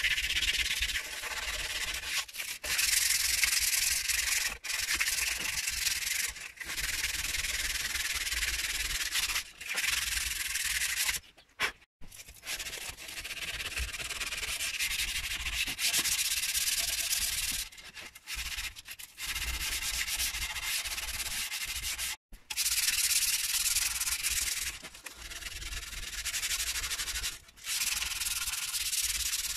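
Sandpaper rubbed by hand along a wooden hatchet handle: a continuous scratchy hiss of back-and-forth strokes, with short pauses twice.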